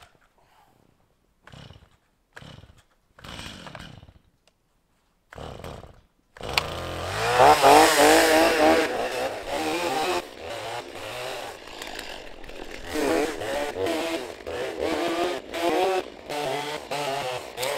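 Gas chainsaw being pull-started: several short pulls on the starter cord, then the engine catches about six seconds in. It then runs, revved high around eight seconds, and goes on alternating between idle and revs.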